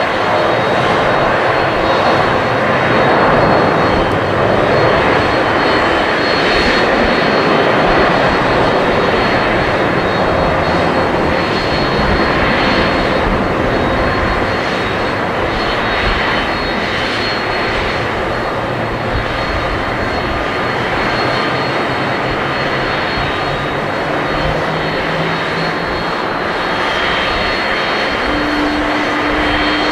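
Boeing 767-300 jet engines at takeoff thrust: a loud, steady jet noise as the airliner lifts off and climbs away, easing a little in level over the second half.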